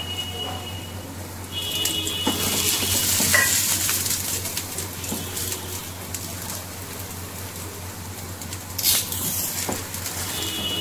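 Oil sizzling in a hot non-stick frying pan under a paratha, the hiss swelling about a second and a half in. Over it come a few light knocks of a brush and a wooden spatula against the pan, the loudest near the end as the spatula goes under the paratha to lift it.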